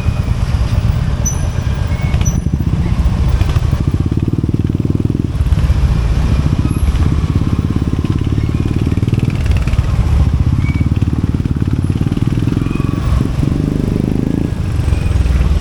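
Royal Enfield Hunter 350's single-cylinder 349cc J-series engine running, its exhaust giving a fast, steady low thump that grows fuller in a few stretches.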